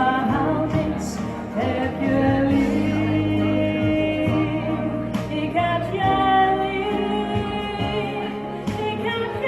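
Background music: a song with a sung melody over instrumental accompaniment.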